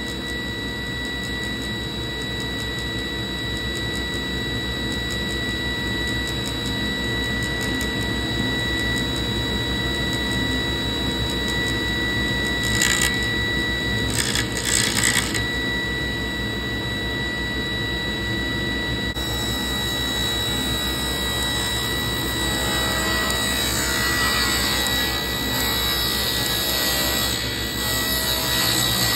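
Table saw running with a steady high tone while ripping a thin strip of trim from a board. There are short rasping bursts near the middle, and the cutting noise grows louder and rougher over the last third.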